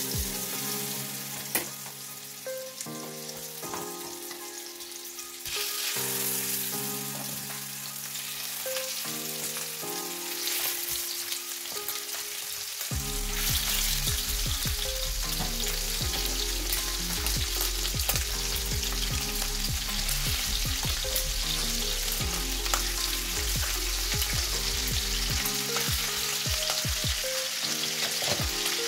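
Pieces of raw oxtail sizzling in hot vegetable oil in a frying pan as they are laid in one after another, with scattered spattering pops. The sizzle gets louder about five seconds in and again about thirteen seconds in as more meat goes into the pan.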